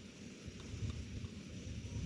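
Outdoor ambience dominated by a low, uneven rumble of wind buffeting the microphone, a little stronger from about half a second in.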